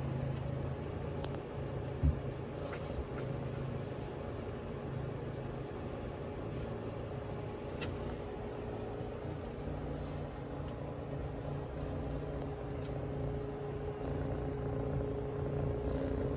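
Scottish Fold cat purring steadily in a low, pulsing rhythm that rises and falls with each breath, with one short knock about two seconds in.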